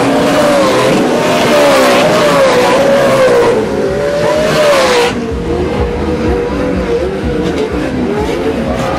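Off-road race truck engines revving up and down as trucks race past on a dirt track. About five seconds in, the sound drops abruptly to quieter, more distant engines over a low rumble.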